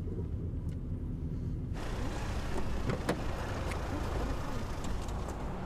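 Low, steady rumble of a car's cabin while driving, which cuts off about two seconds in to street noise outside a parked car; a sharp click about three seconds in is the car door being opened as someone climbs out.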